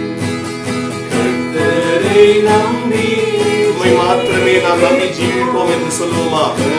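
Acoustic guitar strummed in a steady rhythm, accompanying several voices, men and a woman, singing a Tamil Christian worship song together.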